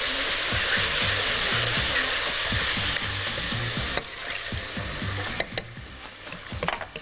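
Stock poured into a hot pot of toasted vermicelli and vegetables, hissing and sizzling loudly as the liquid hits the hot pan, while a wooden spoon stirs. The sizzle drops off sharply about four seconds in and quietens further a little later as the liquid settles.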